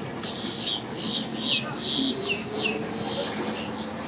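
Birds chirping in a quick run of short, falling notes over a steady low rumble of vehicles moving on the ramp.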